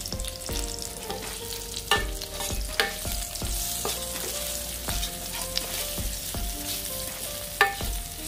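Shallots and tomato sizzling in hot oil as they are stirred in the pot, with a steady hiss. A utensil knocks against the pot now and then, most sharply about two seconds in, near three seconds and near the end.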